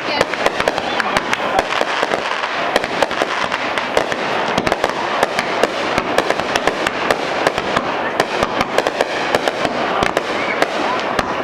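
Aerial fireworks shells bursting in a dense, continuous run of bangs and crackling, several reports a second with no pause.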